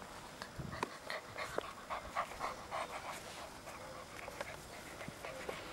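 Samoyed puppy panting in quick short breaths, most plainly from about a second in to about halfway through, with scattered light clicks.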